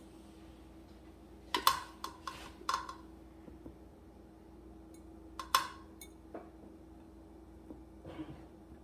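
Light clinks and taps on a glass baking dish as boiled potato slices are laid into it by hand, about six in all with gaps between, over a faint steady hum.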